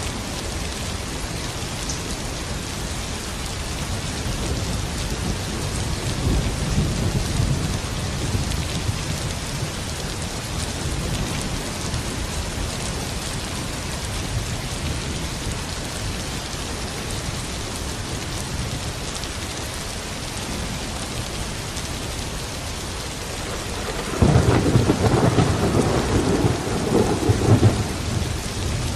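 Steady heavy rain falling, with thunder rumbling low; a louder clap of thunder starts suddenly near the end and rolls for a few seconds.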